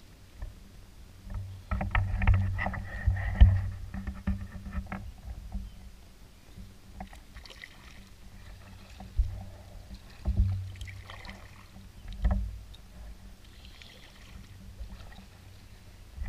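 Canoe being paddled with a double-bladed paddle: blades dipping and splashing, water dripping off them, with a run of thumps and knocks, busiest a couple of seconds in and again in short bursts later.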